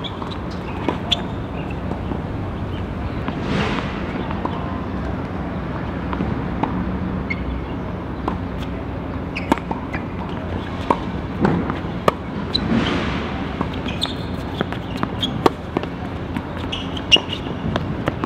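Tennis balls struck with rackets and bouncing on the court: sharp, irregular pops scattered through, over a steady low hum. Two brief rushing swells rise and fade, one about a fifth of the way in and one about two-thirds in.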